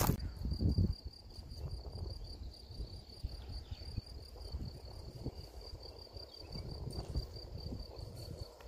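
Cricket chirping in a steady, evenly pulsing high trill, with low thumps on the microphone in the first second.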